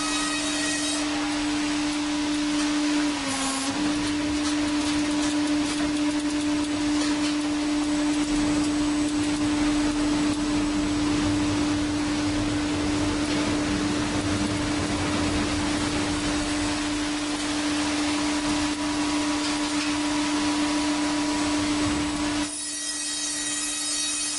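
Electric woodworking power tool running with a steady whine over the hiss of cutting wood. Its pitch dips briefly about three seconds in, and the cutting hiss drops away near the end while the motor whine carries on.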